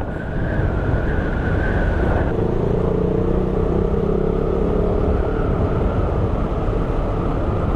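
KTM Duke 390's single-cylinder engine running under way with a steady low rumble from the ride; the engine note changes about two seconds in.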